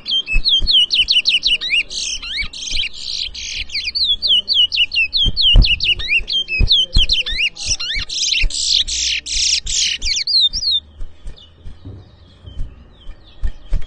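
Towa towa (large-billed seed finch) singing a long, fast song of rapid sweeping whistled notes, broken by denser buzzy trills, that stops about eleven seconds in. Each finished song is one point in a song-count bird race.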